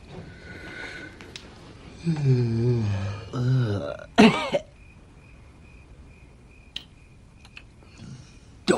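A man's wordless vocal noises: two low, wavering grumbles in the throat, then a short high-pitched squeal about four seconds in.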